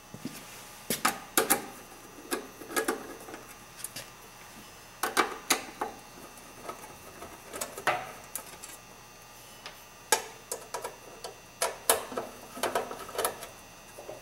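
A screwdriver working the screws of a sheet-metal capacitor cover on a single-phase electric motor: irregular sharp metallic clicks and ticks, often several close together.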